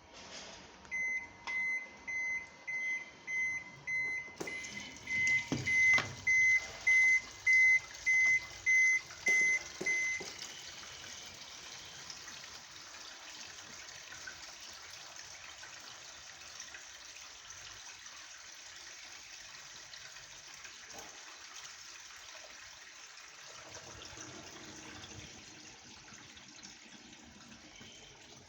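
Top-loading washing machine beeping about twice a second for the first ten seconds or so, then water running steadily into the tub as it fills.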